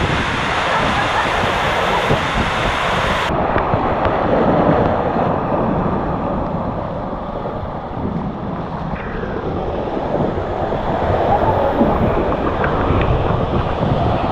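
Water rushing and splashing around a raft tube riding down a water-park flume, with wind buffeting the microphone. The sound turns suddenly duller about three seconds in.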